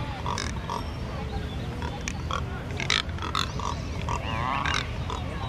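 Neotropic cormorants calling at close range: a string of short, rough grunting calls from several birds.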